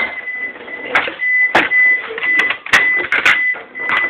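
Clatter of kitchen items being handled: several sharp clicks and knocks at irregular intervals, over a thin, steady high-pitched whine.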